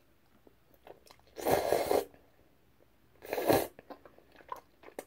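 Close-up eating of jjajang ramyeon noodles: two loud, noisy slurps about a second and a half and three and a half seconds in, with soft chewing clicks between.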